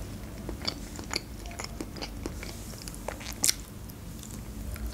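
Close-miked eating sounds of someone biting and chewing soft avocado: small wet mouth clicks and lip smacks, with one sharper click about three and a half seconds in.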